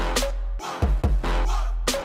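Background music with a heavy, sustained bass and sharp drum hits.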